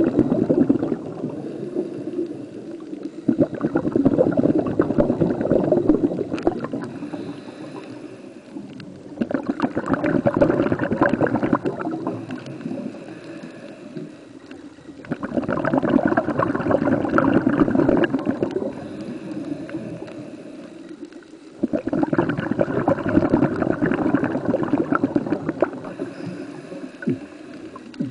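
Underwater breathing bubbles from a scuba diver's regulator: four bursts of crackly bubbling, each about three seconds long and coming roughly every six seconds, with quieter gaps between.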